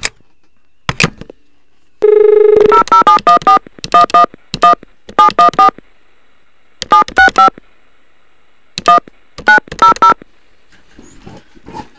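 Telephone touch-tone (DTMF) dialing on a landline. Two clicks come first, then a dial tone that lasts about half a second. Keypad beeps follow in several quick groups, about twenty in all, as a number is dialed.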